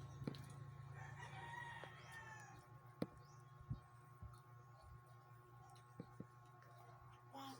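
A faint, drawn-out call lasting about a second and a half, its pitch rising and then falling, over a steady low hum. A few sharp clicks follow.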